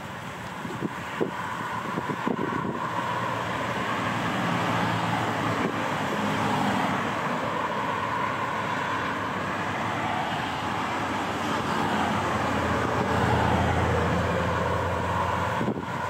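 An engine running steadily, a low hum that gets louder about two seconds in.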